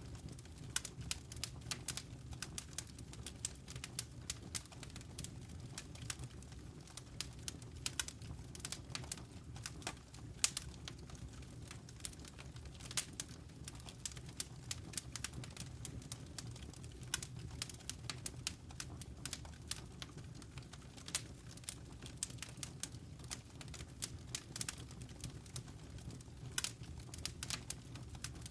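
Wood fire in a fireplace crackling: irregular sharp pops and snaps, several a second, over a low steady rumble of burning.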